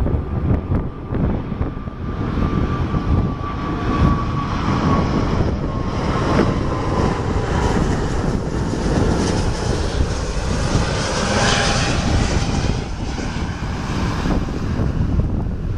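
Jet engines of an Airbus A340-600, four Rolls-Royce Trent 500s, running with a heavy rumble and a thin whine that slowly falls in pitch; the hiss swells about two-thirds of the way through.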